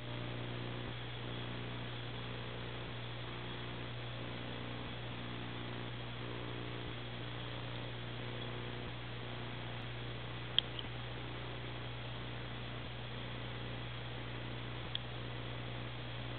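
Steady low electrical hum with an even hiss, broken by two faint clicks about ten and fifteen seconds in.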